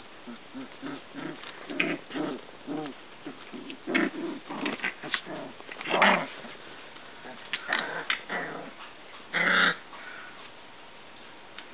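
Three-week-old Icelandic sheepdog puppies play-fighting, making many short, squeaky puppy growls and yips. Two louder, longer cries come about six seconds in and again about nine and a half seconds in.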